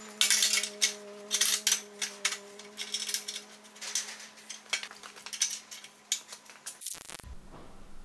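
Steel motorcycle-frame parts clinking and clattering as they are handled and fitted on a frame jig, in irregular bursts over a steady hum; it all cuts off abruptly about seven seconds in.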